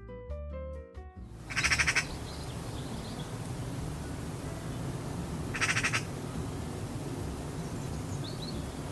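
An animal's short, rasping call with a rapid pulsed texture, given twice about four seconds apart over the steady hiss of a field recording. A short musical phrase ends just before the first call.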